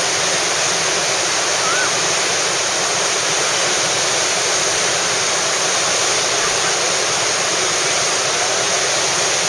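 Whitewater of a large river rapid rushing, a loud steady wash of water that does not let up.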